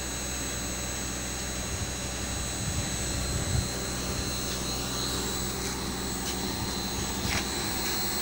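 Steady drone of running machinery, electric motors and pumps, with a constant high-pitched whine over a low hum; a couple of faint clicks in the second half.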